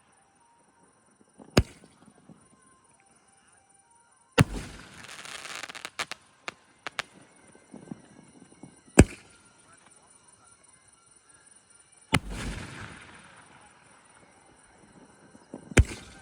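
Mr.Big OSCAR 3-inch, 24-shot aerial firework cake firing single shots a few seconds apart. There are about five sharp bangs, two of them trailing off into a second or so of hissing crackle.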